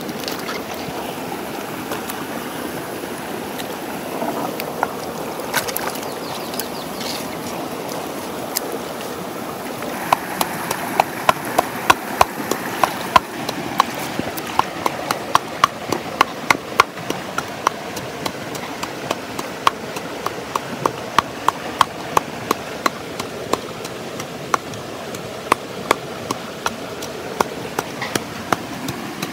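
Stream water running steadily, with a metal colander of vegetables swished in it at first. From about ten seconds in, a wooden pestle pounds in a wooden mortar in quick, regular knocks, about two to three a second.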